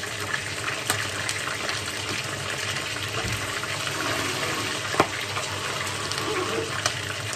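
Chicken feet and lemongrass frying in hot oil in a pan: a steady sizzle with scattered crackling pops of spattering oil, one sharp pop about five seconds in.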